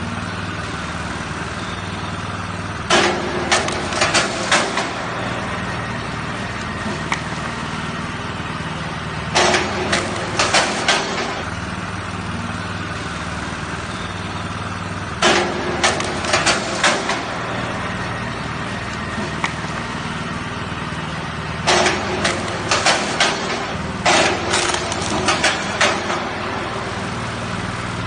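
Small gasoline engine of a 35-ton kinetic log splitter running steadily, spinning the flywheels. Five times, the wedge is engaged and drives through a log, giving a quick run of loud cracks and clunks as the wood splits and the ram snaps back.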